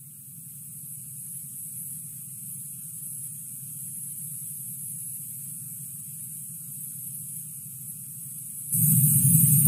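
Steady electrical hum with a high hiss, from the recording's audio feed. It jumps much louder near the end.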